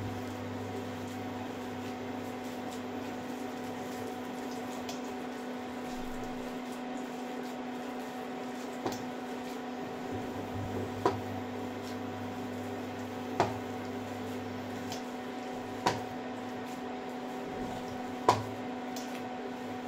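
Wet potato and gram-flour mixture squishing as it is mixed by hand in a glass bowl, over a steady electrical hum. A few sharp knocks come in the second half, about every two and a half seconds, the last one the loudest.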